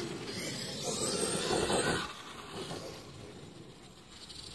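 Radio-controlled car driving fast across grass, motor and tyres running loudly for about two seconds before the sound drops away as it moves off.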